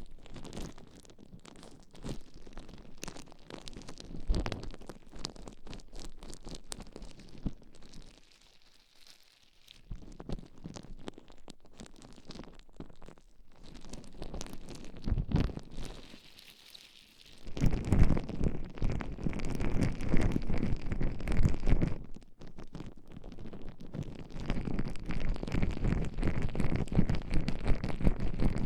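Gloved hands rubbing gel and baby oil over the ears in an ear massage: a dense wet squishing and rubbing with many small crackles. It dips almost away about a third of the way in and grows clearly louder a little past halfway.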